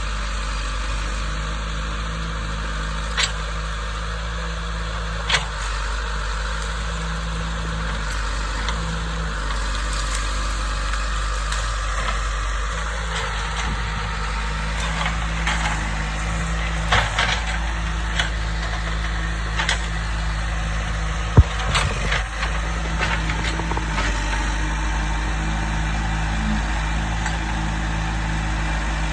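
Diesel engine of heavy land-clearing equipment running steadily, with scattered sharp knocks and cracks.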